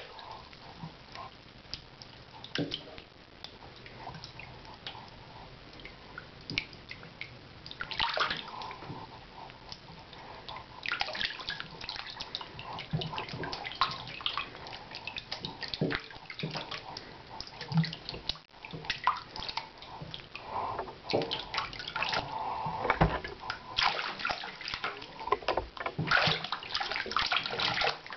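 Water from a kitchen faucet running into a stainless steel sink while hands slosh and splash about in it. The splashing is irregular, growing louder and busier about a third of the way in.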